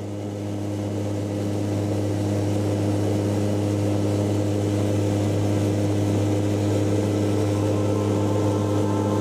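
Steady droning hum of a Lockheed C-130 Hercules's turboprop engines and propellers in cruise, heard from inside the cabin. It fades up over the first second or two.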